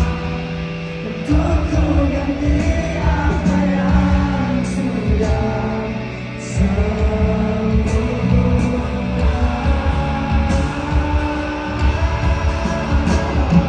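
Rock band playing live through a concert PA, with singing over guitars, bass and drums. The drums and bass drop out briefly about a second in and again around six and a half seconds in.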